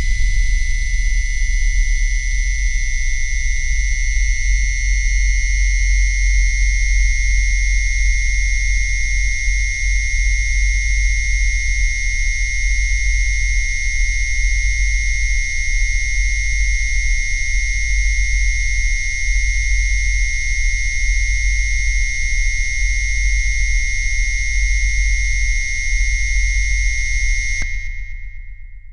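Loud, steady synthesized electronic drone: a deep rumble under a shrill, high-pitched whine made of several tones at once. It holds unchanged, then fades away near the end.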